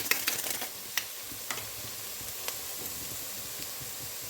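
Chopped vegetables sautéing in a pan, a steady sizzle with a few light clicks about one, one and a half and two and a half seconds in.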